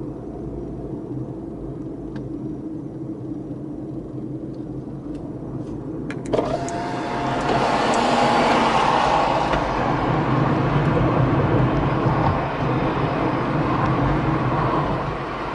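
A car on the move in city traffic: a steady low engine and tyre rumble. About six seconds in there is a click, and the road noise grows louder.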